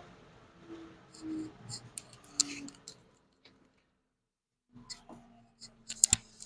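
Faint tail of a dust collector motor winding down after being switched off, then scattered clicks and light knocks from handling the machine, with a sharper click about six seconds in.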